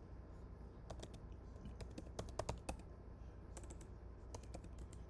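Typing a word on a computer keyboard: an uneven run of quick key clicks that starts about a second in, with a short pause in the middle.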